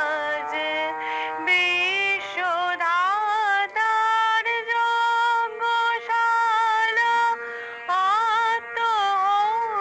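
A woman singing solo, holding long notes with ornamented bends and glides, in phrases separated by short breaths.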